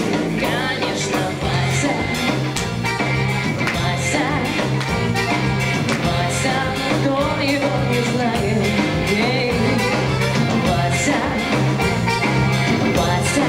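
Live band playing an upbeat rock-and-roll song: drums, bass guitar, electric guitar and accordion, with a steady beat.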